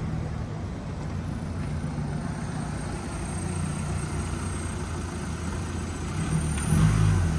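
Modified VW Mk6 2.0 TDI four-cylinder diesel, with its DPF and EGR deleted and a Rawtek exhaust, running with a steady low exhaust note. It swells briefly louder near the end.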